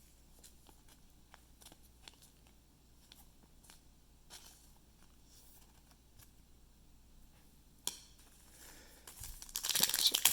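Faint ticks and slides of trading cards being handled, with a sharp click about eight seconds in. Near the end comes a loud crinkling of foil as a card pack wrapper is torn open.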